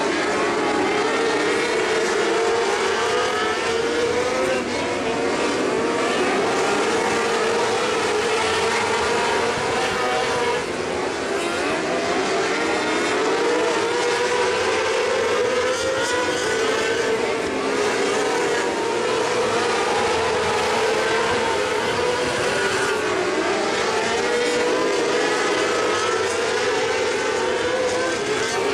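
A pack of winged mini sprint cars racing on a dirt oval, many engines running at high revs together, their pitch rising and falling over and over as the cars go round.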